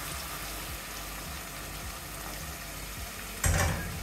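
Hot water poured in a steady stream into a pot of browned minced meat, splashing into the ragù. A short thump about three and a half seconds in.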